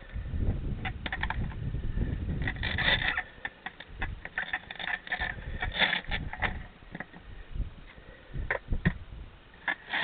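Wind buffeting the microphone in gusts, with scattered short scratchy clicks and rustles.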